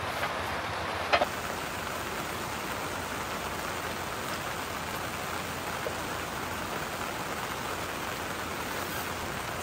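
A steady, even hiss of noise, with a sharp double knock about a second in.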